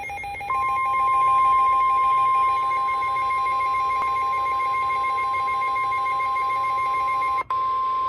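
Midland NOAA weather radio sounding a severe thunderstorm warning alert. Its rapid pulsing two-pitch alarm beep plays over the steady, unbroken warning alarm tone of the weather broadcast, which starts about half a second in. Near the end the pulsing beep stops and the steady tone carries on alone.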